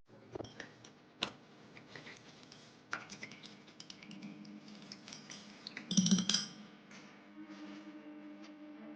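Irregular light clicks and taps, with a louder clatter about six seconds in, over a faint steady hum.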